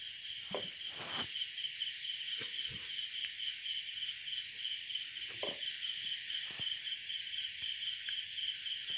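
Crickets chirping in a steady, fast-pulsing trill, with a few faint knocks.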